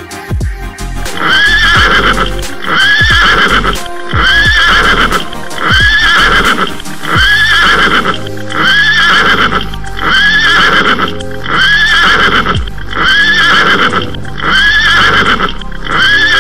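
A short horse whinny, looped and repeated over and over about every second and a half, set over background music with a beat.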